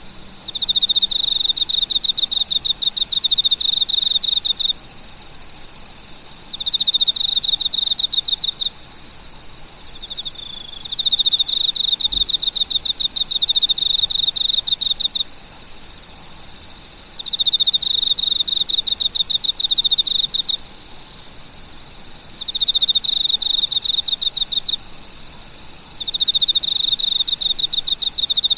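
A cricket chirping in runs of rapid pulsed chirps. There are six runs, each two to four seconds long, with pauses of about two seconds between them. Under them is a steady high ringing in the background.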